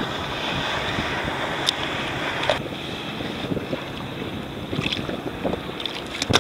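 Wind buffeting the microphone over choppy sea water lapping around a fishing kayak. The wind noise drops away about two and a half seconds in, leaving a few light knocks and rustles from handling the landed fish in a towel.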